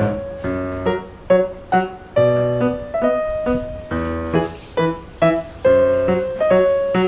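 Background music: a light, bouncy keyboard or piano melody of short separate notes at an even pace.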